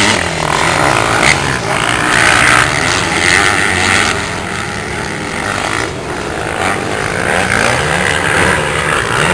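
Motocross motorcycles racing on a dirt track, their engines revving up and down through the gears as they pass.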